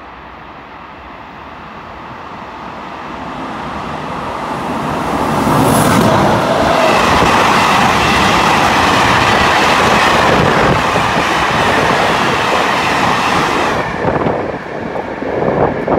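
Freight train of hopper wagons passing through a station at speed. It builds as it approaches, runs as a loud steady rush of wheels and wagons for about eight seconds, then falls away about fourteen seconds in, with a brief last surge near the end.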